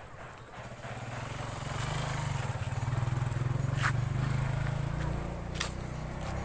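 A motor vehicle's engine passing close by, growing louder over the first few seconds and then easing off a little, with a couple of short clicks in the middle.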